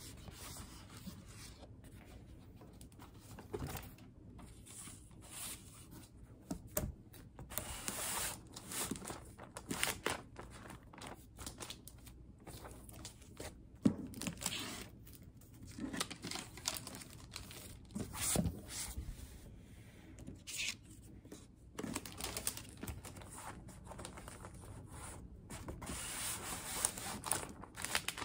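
Paper art prints, cards and packing materials being handled and packed by hand: rustling, crinkling and sliding in irregular bursts, with a few sharp taps as items are set down on the desk.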